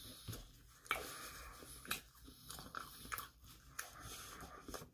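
A person chewing a mouthful of pizza close to the microphone: faint soft mouth sounds with a few short, sharp clicks about a second apart.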